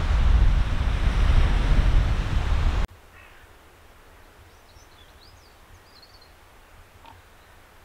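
Wind buffeting the microphone over surf on a shingle beach, cutting off suddenly about three seconds in. Quiet countryside air follows, with a few faint, high bird chirps.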